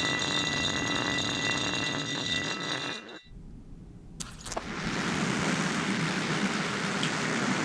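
Metal pressed against dry ice singing with several steady high tones over a hiss, cutting off abruptly about three seconds in. After a short lull, a steady even hiss with no tones.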